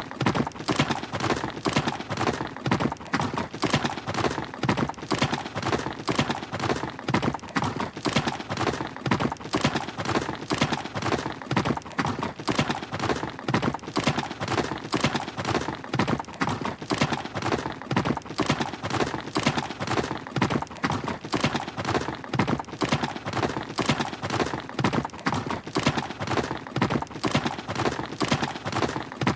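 Horse galloping: hoofbeats in a steady, continuous rhythm.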